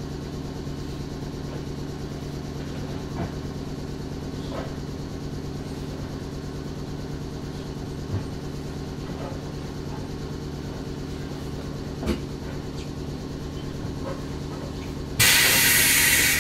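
Inside a JR West 105 series electric multiple-unit car, the car's machinery makes a steady hum with several tones, with a few faint clicks. About fifteen seconds in, a loud burst of compressed-air hiss starts suddenly and lasts about a second before tailing off.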